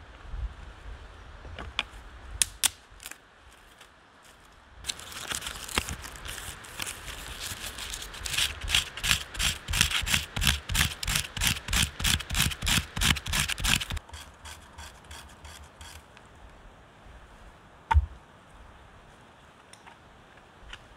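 A hand tool rasping on wood in regular strokes, about two a second, for around nine seconds, starting about five seconds in. A few light clicks come before it, and a single sharp knock comes near the end.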